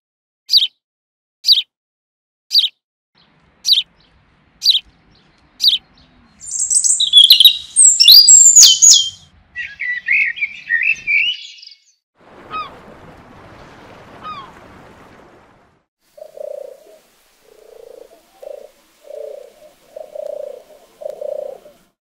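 Garden birds calling and singing: a sharp high call repeated about once a second, then loud, bright twittering song and chatter. Near the end comes the low, soft cooing of Eurasian collared doves in short repeated phrases.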